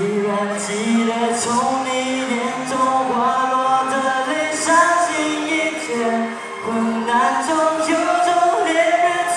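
A man singing a Mandarin song solo into a microphone over amplified backing music. His voice comes in right at the start, with long held notes.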